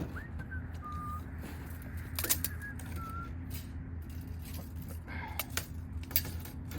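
A steady low hum with scattered sharp clicks and taps, and a few short whistled chirps in the first three seconds.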